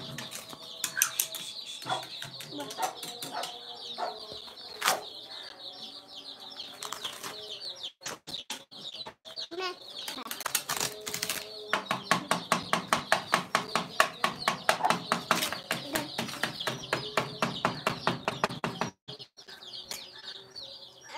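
Chickens calling with high, rapid peeping throughout, mixed with flapping or scuffling strokes; a long run of quick, even strokes starts about twelve seconds in and lasts some seven seconds.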